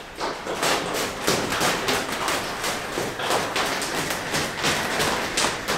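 Burning steel wool being spun for light painting: a fast, irregular run of crackles and whooshes as the sparks fly and shower down.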